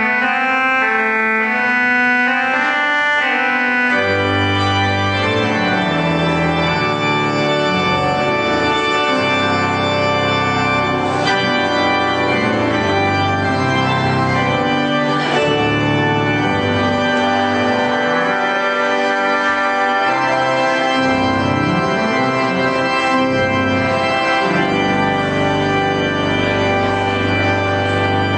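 Organ playing the postlude that closes a church service: held chords that change every second or so, with low bass notes joining about four seconds in.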